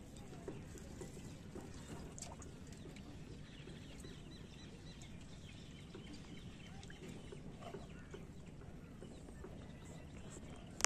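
Faint rural outdoor ambience with birds calling in the distance over a steady low background hum, and a few light knocks.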